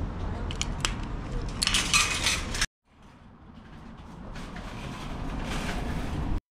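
Metal supermarket shopping trolley clattering as it is freed from the trolley row and pulled out, with a bright metal rattle about two seconds in. After a short break, the steady rolling rattle of the trolley being pushed grows louder.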